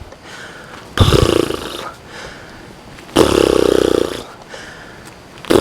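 A person's heavy, raspy breathing close to the microphone while walking uphill: two loud breaths about a second and three seconds in, and another starting near the end.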